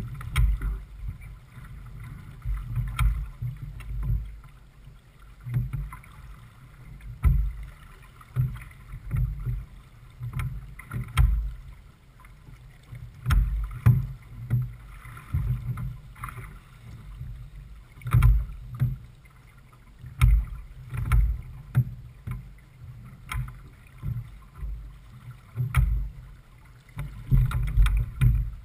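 A J/24 keelboat under sail through chop: irregular low thumps of water and wind every second or two, with scattered light knocks.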